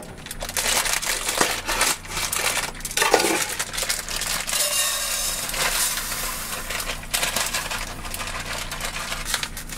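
A plastic bag crinkling as it is handled, then dry risotto rice pouring from the bag into a skillet: a steady, hissing patter of grains lasting a few seconds in the middle.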